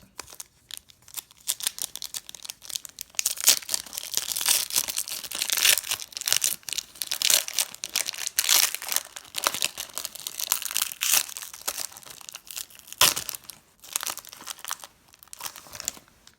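A Pokémon booster pack's wrapper being torn open and crinkled: a dense run of crackling and rustling, with one sharper snap about three-quarters of the way through.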